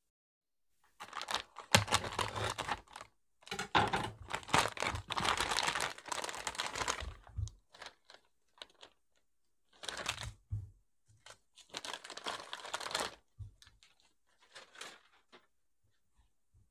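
Plastic bag of cylindrical fish cakes crinkling and rustling in several bursts as it is handled and opened, with a few soft knocks as the fish cakes are set down on a wooden cutting board.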